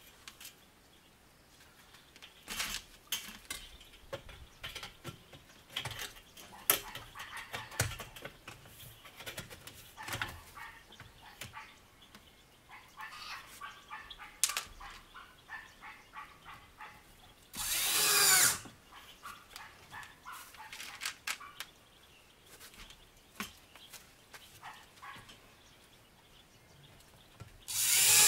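Scattered knocks and rattles of sheet metal being handled, then an angle grinder run in two short bursts of about a second each, one about two-thirds in and one at the end, cutting into a profiled steel sheet wall.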